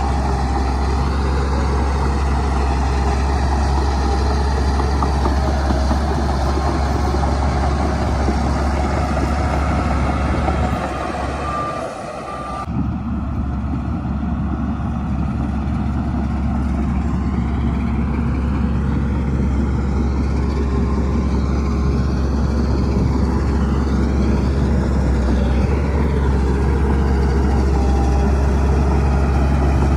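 Heavy diesel engine of earthmoving machinery running steadily with a deep rumble, dipping briefly about twelve seconds in.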